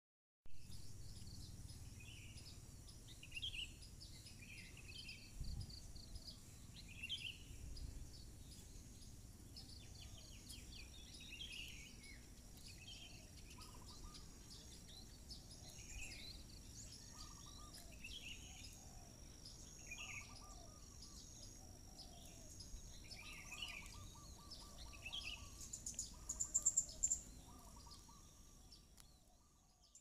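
Small birds chirping, short calls repeating every second or two, over a steady high-pitched insect drone; a louder, rapid trill near the end.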